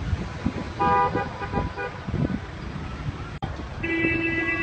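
Car horn tooting: a short blast about a second in, then a longer steady note near the end, over a low rumble of wind on the microphone.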